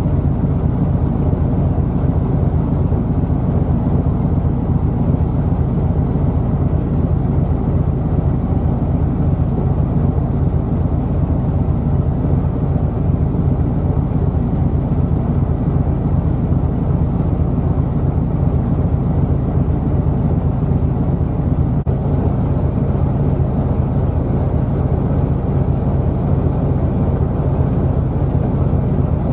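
Ship's diesel engine running steadily underway: a loud, even low drone with a fast, regular throb.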